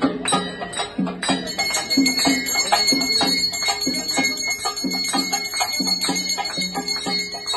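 Procession drums beating in a quick, even rhythm with bells ringing. About a second and a half in, a steady high ringing of bells joins and carries on over the drumming.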